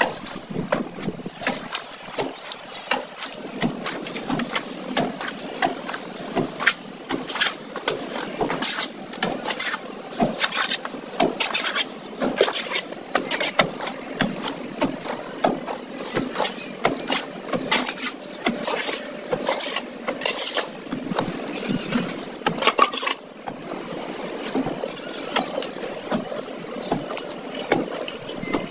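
Steel trowel scraping sand-cement mortar out of a metal pan and slapping it onto a brick wall: a dense, irregular run of scrapes and clicks.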